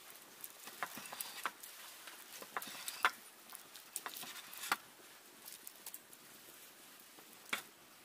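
Kitchen knife slicing raw chicken breast on a wooden log-slice cutting board: irregular sharp taps and clicks as the blade meets the wood, busiest in the first five seconds, with one more tap near the end.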